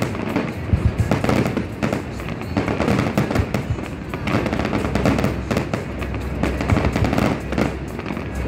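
Aerial fireworks bursting in rapid succession: many overlapping bangs and crackles, with music in the background.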